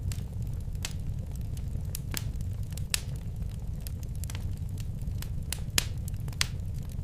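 Wood fire burning in a fireplace: a steady low rumble of the flames with sharp, irregular crackles and pops, about one a second.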